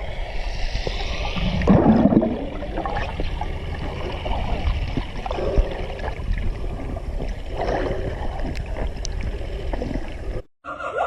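Water noise from the great white shark clip: irregular gurgling and sloshing over a steady low rumble, cutting off suddenly near the end.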